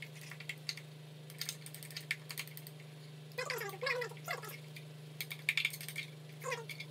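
A spoon scraping and clicking against the inside of a rice cooker's inner pot as sticky cooked glutinous rice is dug out, in irregular short clicks and scrapes over a steady low hum.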